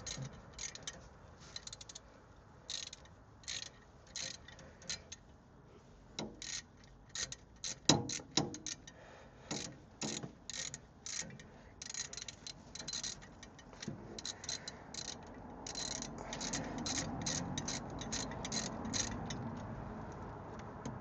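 Ratchet wrench clicking in short irregular runs as a loosened spark plug is unscrewed from a 1976 Chevy C20's engine, with a few louder metal knocks about eight seconds in.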